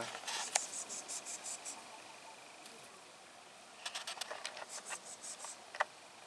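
Insect chirping outdoors in two runs of quick, high-pitched rhythmic pulses, with a faint thin steady tone between them. A single sharp tick comes near the end.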